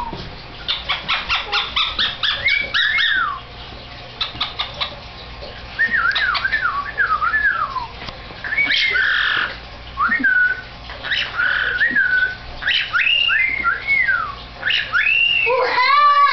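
Pet Amazon parrot making a fast run of clicks, then whistling a string of short notes that swoop up and down, ending in a louder, harsher call.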